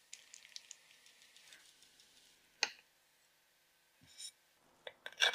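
Sparse light clicks and taps of kitchenware being handled: faint ticks at first, one sharp click about two and a half seconds in, a soft knock about a second and a half later, and a couple of quick clicks near the end.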